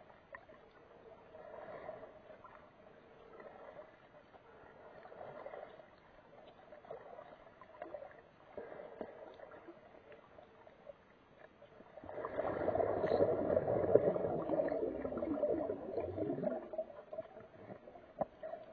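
Muffled water noise picked up underwater by a camera in a waterproof housing as the swimmer moves, swelling softly about every second and a half to two seconds. About twelve seconds in, a much louder rush of churning water lasts some four seconds.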